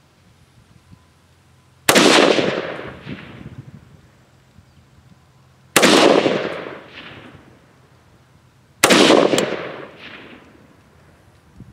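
Three single shots from a Zastava ZPAP M90PS rifle in 5.56 mm, slow aimed fire about three to four seconds apart, each with a long rolling echo that fades over about two seconds.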